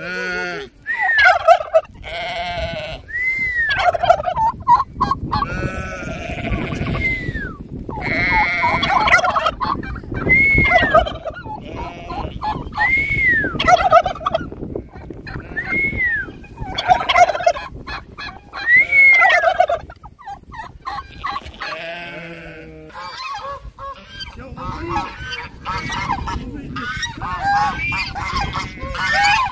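Domestic tom turkeys gobbling and calling while strutting, a call every two to three seconds. Near the end, domestic geese honking.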